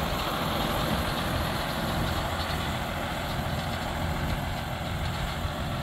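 John Deere 6930 tractor's six-cylinder diesel engine idling steadily.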